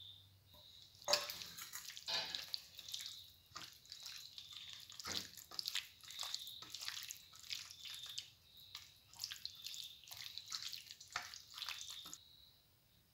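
A bare hand squishing raw chicken pieces through a thick chilli-powder, pepper and turmeric marinade: irregular wet squelches and smacks, starting about a second in and stopping near the end.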